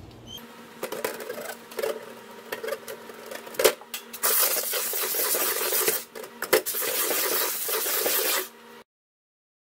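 Plastic ice-maker parts being scrubbed by hand in a stainless steel sink: scattered clattering knocks of plastic against the sink, then from about four seconds in a steady, dense scrubbing with a few short pauses. The sound cuts off abruptly near the end.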